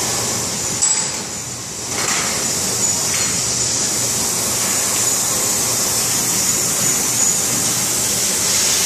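Steady hissing rush of a lit gas brazing torch flame, dipping briefly about a second in.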